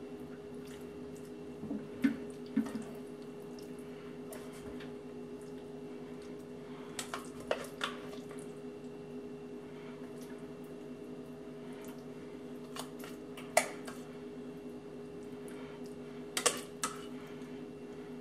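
A spatula scraping and tapping a stainless steel saucepan while scooping thick filling into squash shells: a handful of scattered scrapes, taps and soft wet plops, over a steady background hum.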